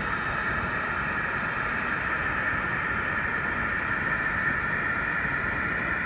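OO gauge model diesel locomotive hauling a rake of coal hopper wagons along the layout's track, giving a steady running and rolling noise.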